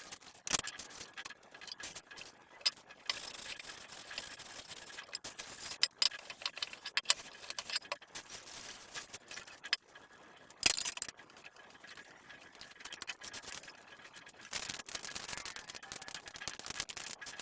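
Irregular clicks, taps and light rattling of kitchen utensils and dishes being handled, with a steady high hiss beneath.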